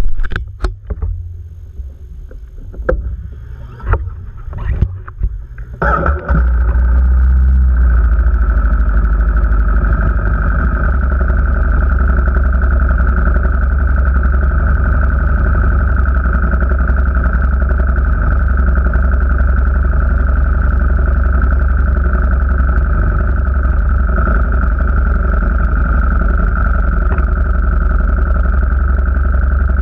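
A few seconds of scattered knocks and handling noises, then a vehicle engine comes in suddenly about six seconds in and runs steadily.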